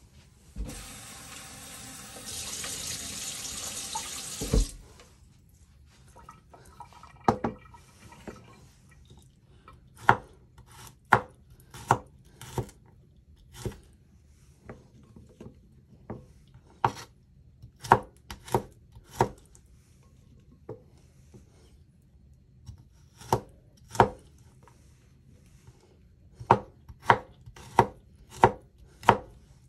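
Water running from a tap for about four seconds, ending with a knock. Then a knife chopping on a cutting board in single, spaced strokes, in short runs with pauses between them.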